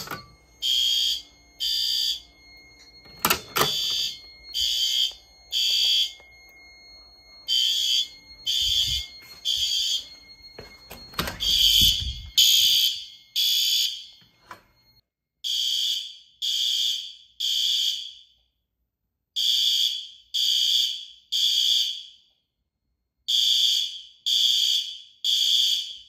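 System Sensor fire alarm horn strobes sounding in sync in the temporal-3 evacuation pattern: three short blasts, a pause, repeated, after a manual pull station is activated. A steady high tone runs under the first half and stops about halfway. There is a sharp knock about three and a half seconds in.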